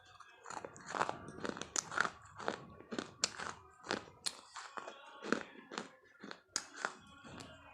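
Crunchy food being bitten and chewed close to the microphone: an irregular run of sharp crunches, several a second.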